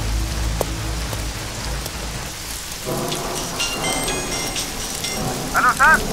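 Heavy rain pouring steadily, with a low rumble underneath for the first couple of seconds. Near the end a man's voice gives two short, loud calls over the rain.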